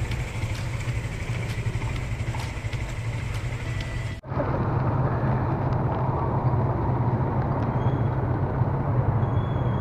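Small motorcycle engine running with wind rushing over the camera microphone while riding. The sound cuts abruptly about four seconds in and resumes with a louder engine note and more wind.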